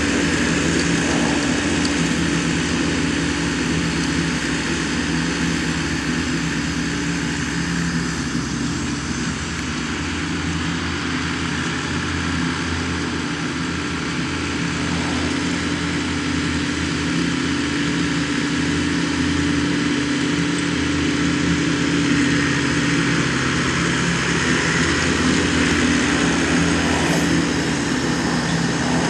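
Engine of a big Jacobson mower running steadily while mowing grass: a constant drone with a little variation in pitch.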